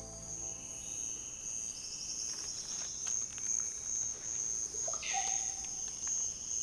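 Rainforest ambience: insects keep up a steady, high-pitched, pulsing chirr, joined about two seconds in by a second, lower insect buzz with a fast rhythm. About five seconds in, a brief animal call sounds at a lower pitch.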